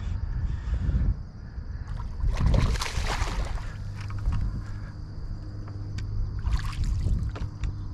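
A hooked bass splashing and thrashing at the surface beside a boat, with the biggest splash about two and a half seconds in and a smaller one near seven seconds. A low steady hum joins about four seconds in.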